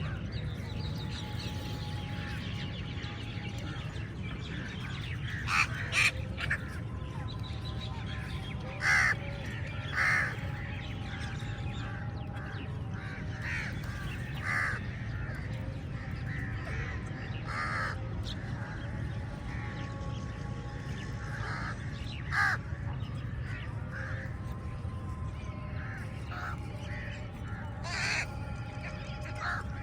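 Crows cawing: a loose scatter of short, harsh calls from several birds, with the loudest ones about six, nine, ten, twenty-two and twenty-eight seconds in, over a steady low hum.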